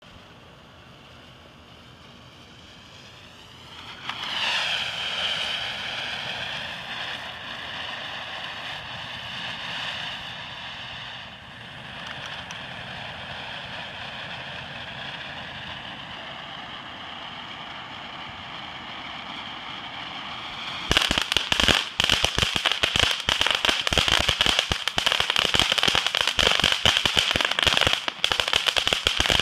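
Ground fountain firework on a spike: a faint fizz as the fuse burns, then about four seconds in the fountain catches with a loud rushing hiss of sparks that runs on steadily. About two-thirds of the way through it changes to loud, dense crackling.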